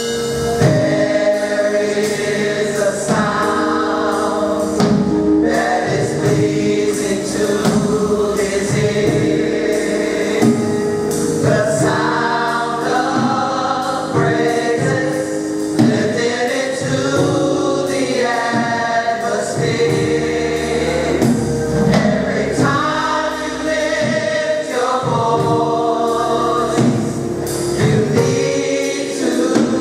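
A mass gospel choir singing.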